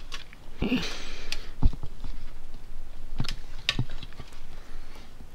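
Handling noise inside a desktop PC case: a brief rustle about a second in and a few scattered sharp clicks and knocks as the power cable connectors are worked loose from a graphics card.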